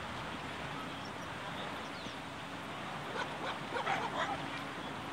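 A dog barking and yipping several times in quick succession, starting about three seconds in, over a steady wash of small waves.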